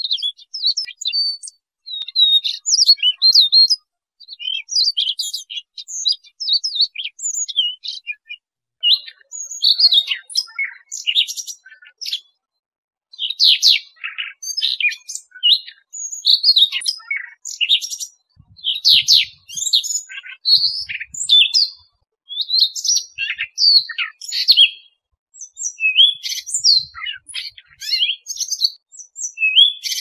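Siberian rubythroat singing: a long, fast, varied warbling song of high whistled and scratchy notes, delivered in phrases a second or few long with brief pauses between them.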